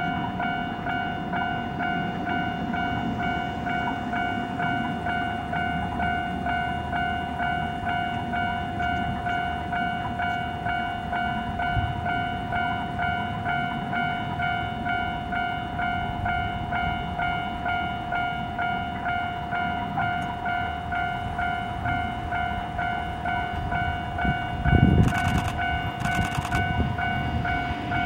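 A level-crossing warning bell rings on and on in rapid, evenly repeated electronic dings as a KuMoYa E493 electric unit approaches. The train's low rumble grows toward the end, with a knock and some clatter about 25 seconds in.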